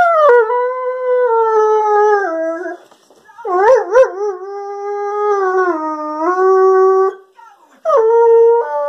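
Weimaraner–German pointer cross dog 'talking' in long, drawn-out howls: three in all, the second wobbling at its start, each sagging lower in pitch as it goes, the third starting near the end.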